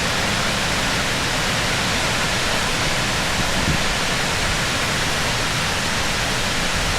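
Waterfall rushing steadily, a loud, even roar of water running high after recent rain.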